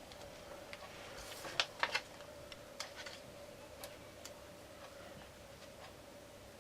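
Light scattered clicks and taps from handling new adhesive tape strips and small parts on an iPad 2's frame during a screen repair, with a louder run of three clicks about two seconds in.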